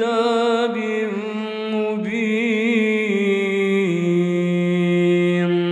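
Quran recitation in melodic tajweed style: a single voice holding long, drawn-out notes with wavering ornaments, stepping down to a lower held note about four seconds in.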